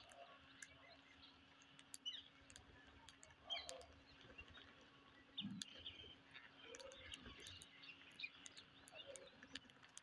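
Faint, scattered chirps and calls from a flock of rose-ringed parakeets feeding on the ground, with many small sharp clicks throughout and a faint steady low hum beneath.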